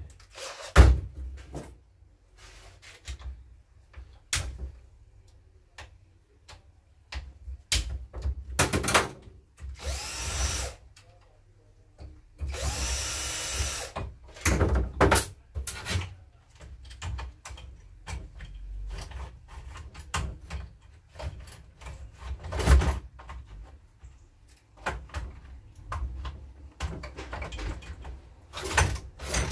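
Workshop tool noise: scattered knocks and clatter, with a small power tool running briefly twice, once about ten seconds in and again for about a second and a half around thirteen seconds.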